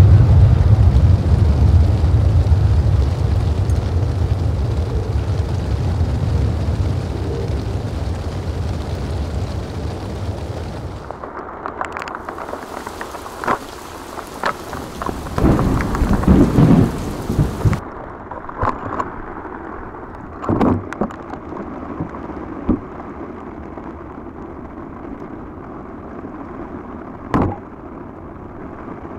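Twin-engine jet airliner on a rain-soaked runway, its loud engine noise and spray fading steadily as it moves away, with rain. About eleven seconds in the sound cuts to a quieter rain hiss with scattered knocks, a brief cluster of louder bumps, and a few sharp clicks near the end.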